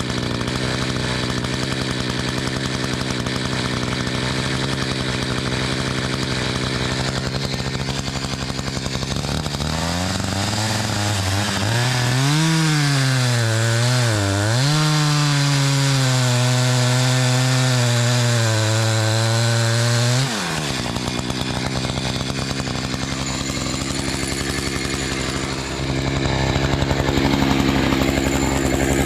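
Gas chainsaw idling, then throttled up for about ten seconds, its pitch dipping and recovering under load, before dropping back to idle about two-thirds of the way through.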